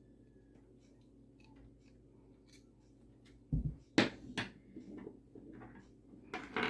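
Hands working the metal parts of a Star Model S .380 pistol during reassembly, lining up a part with a small ice pick: faint ticks, then a dull knock and a sharp metallic click about four seconds in, with more clicks near the end.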